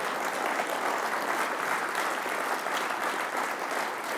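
Audience applauding steadily, a dense even clatter of many hands clapping at the end of a speech.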